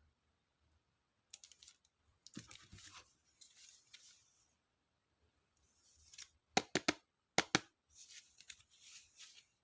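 Stationery packaging being handled and opened: short bursts of paper and plastic rustling and crinkling, with a few sharp clicks or snips in two quick groups about two-thirds of the way through.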